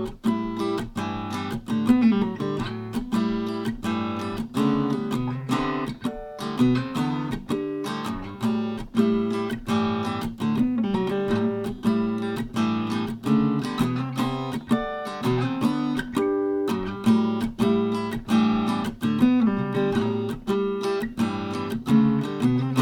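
Acoustic guitar played in a steady rhythm of strummed chords.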